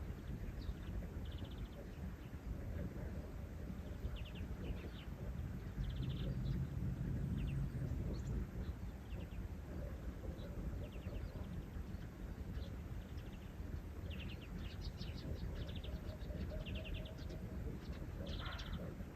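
Small birds chirping in short, rapid bursts of notes, scattered and more frequent near the end, over a steady low outdoor rumble.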